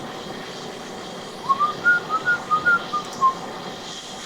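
A person whistling a short tune of about eight quick notes that rise and then fall, over a steady background hum.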